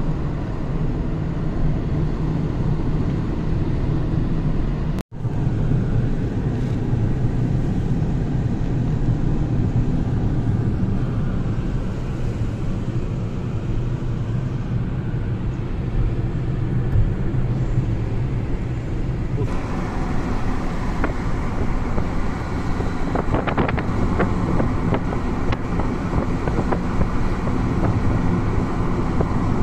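Steady engine and road noise of a car driving, heard from inside the car. There is a momentary dropout about five seconds in, and a brighter rushing hiss joins from about two-thirds of the way through.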